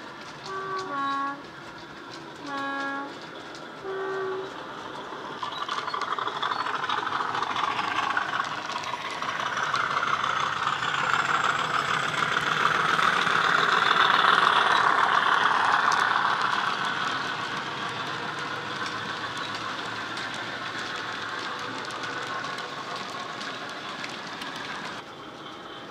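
Hornby Class 50 model locomotive's DCC sound decoder playing a two-tone diesel horn in three short blasts, high-low, low, then high, through the model's small bass-enhanced speaker. Its recorded English Electric V16 diesel engine sound then builds as the loco passes, loudest about halfway through, before settling to a steady lower level while the wagons roll by.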